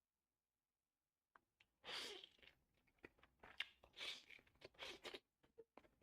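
Close-miked mukbang eating: wet chewing and crunching with many small mouth clicks, beginning after about a second of silence. The biggest crunchy bites come about two, four and five seconds in.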